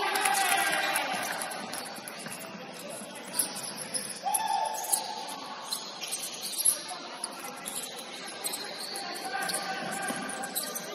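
Indoor basketball game sounds on a hardwood court: sneakers squeaking, the ball bouncing, and players' short calls and shouts.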